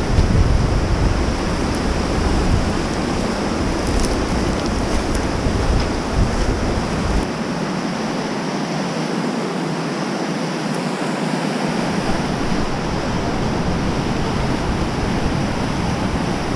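Steady rush of fast whitewater rapids, with wind buffeting the microphone as a low rumble that drops away for a few seconds midway.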